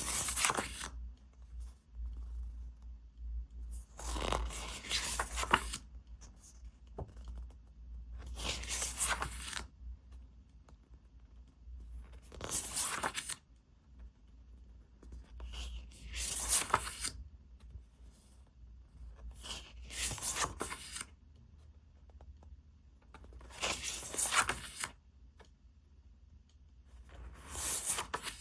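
Repeated tearing: about eight short rips, each under a second or two, coming roughly every four seconds, over a faint steady low hum.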